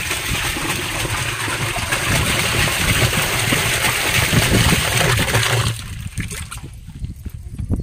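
Water being poured into a partly filled drum: a steady rush and splash that stops about six seconds in.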